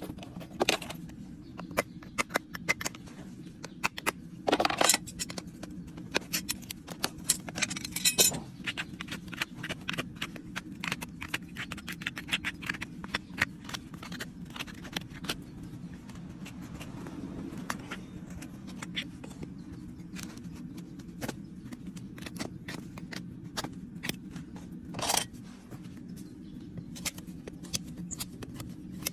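Farrier's metal tools working a horse's hoof: a long run of sharp clicks and snips, with a few short scraping strokes about 5, 8 and 25 seconds in, over a steady low hum.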